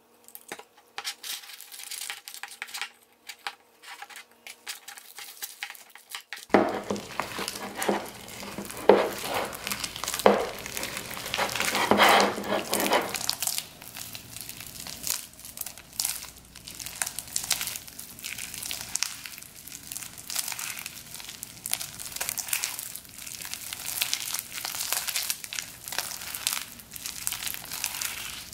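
Yellow glitter slime being squeezed, kneaded and stretched by hand, giving off quick irregular crackles and pops. It gets louder and busier about six seconds in.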